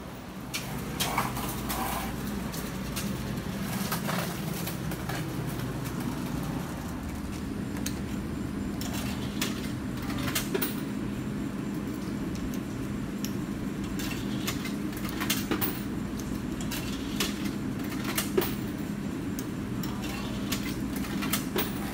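Coins clinking and buttons clicking at a vending machine, in scattered sharp clicks, over a steady low machine hum.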